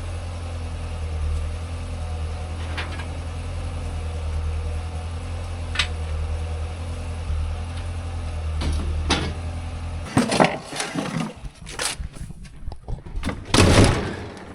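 Vehicle engine running with a steady low hum and a few light clicks. It cuts off abruptly about ten seconds in, followed by a run of irregular knocks and clatter.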